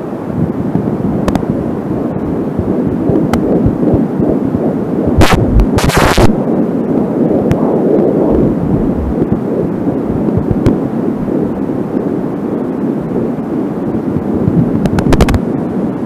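Angelsound fetal doppler picking up a fetal heartbeat at 13 weeks: a fast, rhythmic whooshing pulse under a steady rush of doppler noise. Sharp static crackles cut in about five and six seconds in and again near the end, which the uploader puts down to the short audio cable pulled tight.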